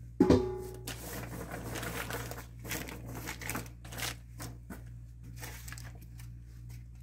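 Hands spreading chopped garlic scapes over a paper-lined baking sheet: crinkling paper and small rattles of the scape pieces, after a sharp knock on the tray just after the start. The rustling thins out over the last couple of seconds.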